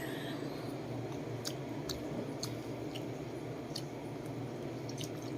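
Someone chewing seedless grapes close to the microphone: a handful of faint, short wet clicks and smacks at irregular intervals over a steady low hum.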